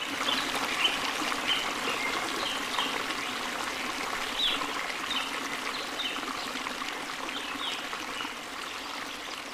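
Water trickling steadily from a small decorative tabletop fountain into its clay pot, with short high chirps repeating over it.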